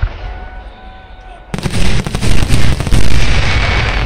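Aerial fireworks bursting: a fading boom at the start, then a sudden loud run of shell bursts and bangs about a second and a half in that dies away slowly.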